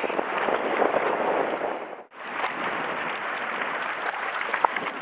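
Sea water washing and sloshing against the shore rocks, a steady rushing noise that cuts out for a moment about two seconds in.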